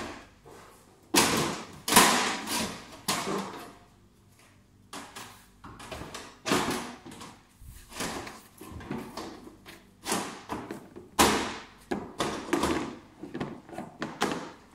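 Housing cover panels of a Soprano laser machine being pushed and pulled by hand, giving a string of irregular knocks, thumps and rattles as the panels shift and catch.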